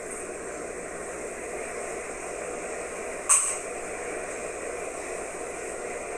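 Steady hiss of background noise, with one short, sharp sound about three seconds in.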